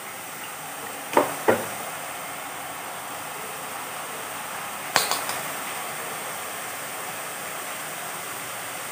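Boondi drops frying in hot oil with a steady sizzle as gram-flour batter goes through a perforated steel skimmer. Sharp metal clinks of a steel ladle on the skimmer come twice about a second in and again at about five seconds.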